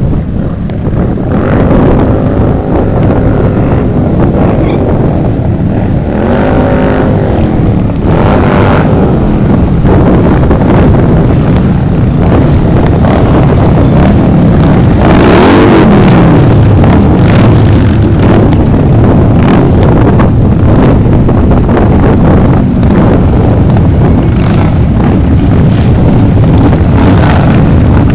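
A procession of cruiser and touring motorcycles running past one after another, a steady engine din from the many bikes. Single bikes rise and fall in pitch as they pass close, most plainly about fifteen seconds in.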